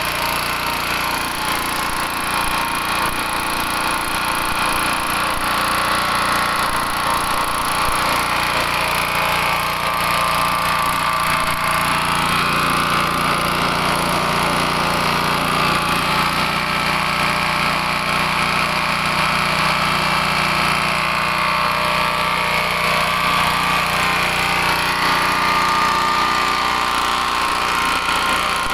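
Vertical pellet mill running steadily, a continuous loud mechanical drone.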